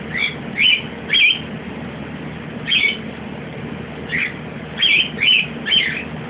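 A small pet animal held in the hand giving short high-pitched calls, about eight of them at irregular intervals, some sliding up or down in pitch.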